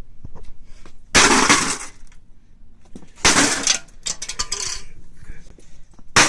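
Plastic parts of an HP LaserJet 1300 laser printer being broken apart by force: three loud crunching, cracking crashes about two seconds apart, with smaller clattering between.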